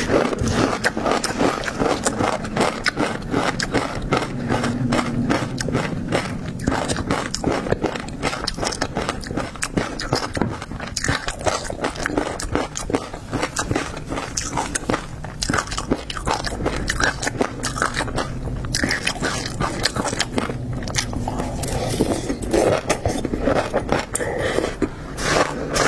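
Close-miked eating of seafood: steady biting and chewing with a continuous run of crunchy, crackling clicks.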